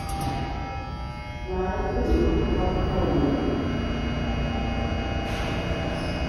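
A Bombardier T1 subway train standing at the platform, its onboard equipment giving a steady hum made of several held tones. The hum grows louder about one and a half seconds in, with a wavering tone for a couple of seconds, then holds steady.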